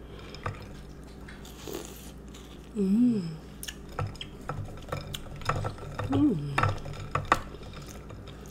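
A spoon clinking against a bowl and stirring ice milk, with scattered small clicks and drips. There are two short hummed vocal sounds, about three and six seconds in.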